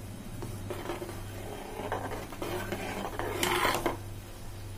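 Steel ladle stirring rice in a steel pot of boiling water, scraping against the metal a few times, with the loudest scrape a little past halfway. A low steady hum runs underneath.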